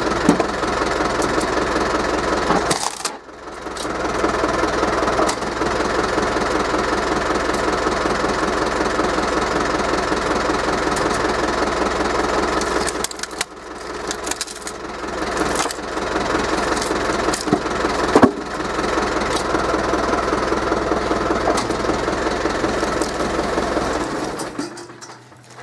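Forklift engine running steadily, powering the hydraulics of a forklift-mounted hydraulic log splitter. The sound drops away briefly twice, a single sharp knock stands out near the middle, and it falls off near the end.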